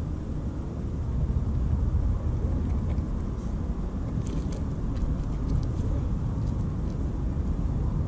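A steady low outdoor rumble, with a few faint clicks about four to five seconds in.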